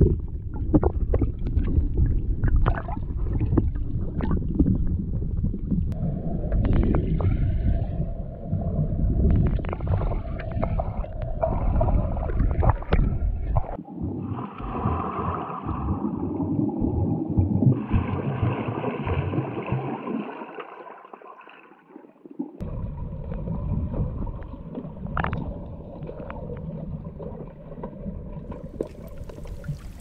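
Muffled underwater sound from a waterproof action camera: water rushing and gurgling past the housing, with scattered knocks and clicks as the snorkeler swims hauling wire-and-net lobster pots. Near the end it changes to an open-air hiss.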